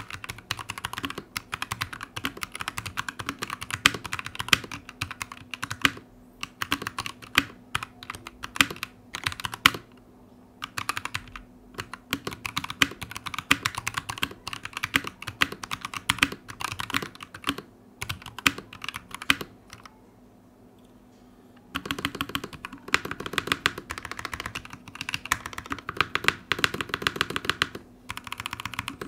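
Fast, continuous typing on a Capturer KT87 mechanical keyboard fitted with stock Kailh Box Red linear switches, with a pause of about two seconds about two-thirds of the way through. A foam noise dampener between the PCB and the plate gives the keystrokes a thocky sound rather than a hollow one.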